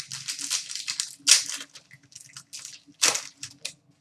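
Crinkling and tearing of a trading card pack wrapper being ripped open and handled. There is a dense run of crackles in the first second and a half and another loud crackle about three seconds in.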